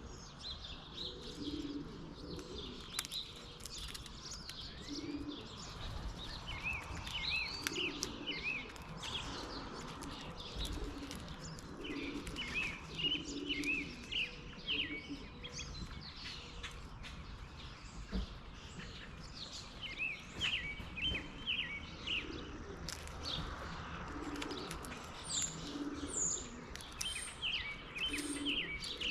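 Small backyard birds chirping with quick, high notes and short trills, over a low cooing of pigeons repeated every second or two.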